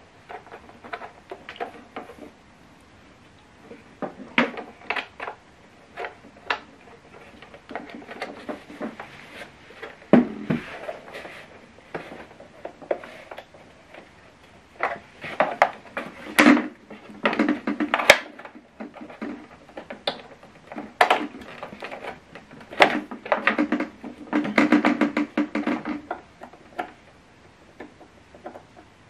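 Handling noise: irregular clicks, knocks and scrapes as an HDMI cable is pushed and squeezed into the tight, recessed HDMI port on the back of an LG S65Q soundbar and the bar's casing is shifted about, busiest in the second half.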